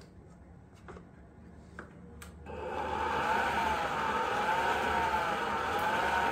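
Electric stand mixer switched on about two and a half seconds in, after a few faint clicks, then running steadily with a whirring motor whine that wavers slightly in pitch. Its flat beater is creaming sugar and egg in a stainless steel bowl.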